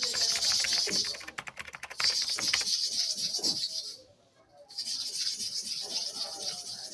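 Steel clipper blade scraped rapidly to and fro across a kerosene-wetted sharpening stone, a fast run of gritty strokes with a short pause about four seconds in.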